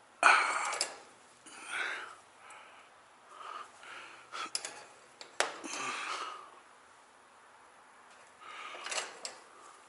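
Scattered short rustles and small clicks of handling at a workbench, with one sharp click about five and a half seconds in.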